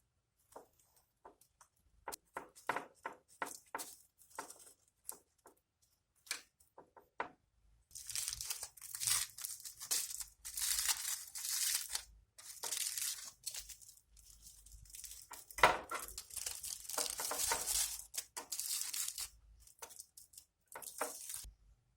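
Kitchen preparation sounds: a run of light taps and knocks, then long stretches of rustling and tearing-like scraping.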